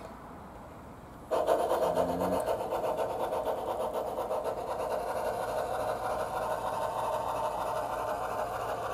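Bachmann Climax G-scale model locomotive's Soundtraxx Tsunami sound decoder playing a rapid, rasping steam chuff as the loco moves off. The sound starts abruptly a little over a second in and then runs steadily.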